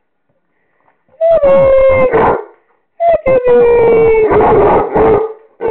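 Basset hound howling: two long, drawn-out howls, each rising briefly and then holding steady, with a third starting near the end.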